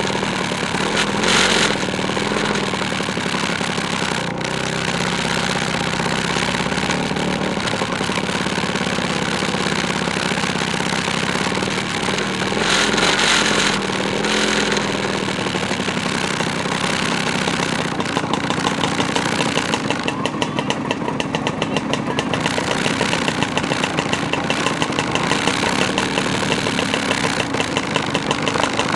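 Two-stroke motor scooter engines running on the move, with a rapid, even pulsing in the engine sound in the last third.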